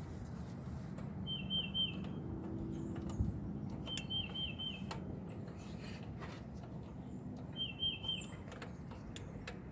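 A songbird singing a short phrase of four or five quick repeated notes, again about every two to three seconds, over a steady low background hum. A single sharp knock sounds about three seconds in.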